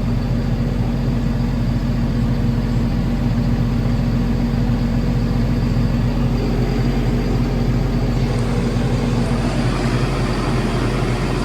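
Farm harvest machine engine running steadily with a low, even hum; the sound shifts slightly about eight seconds in as more hiss joins it.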